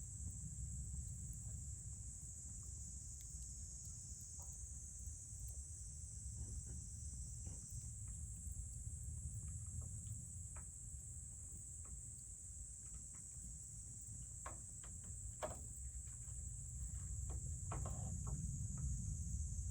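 Wood fire crackling with scattered sharp pops, more frequent in the second half, over a steady high-pitched insect chorus and a low rumble.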